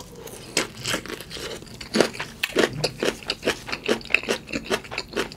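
Close-miked chewing of a mouthful of food: a quick run of small wet clicks and crunches, several a second.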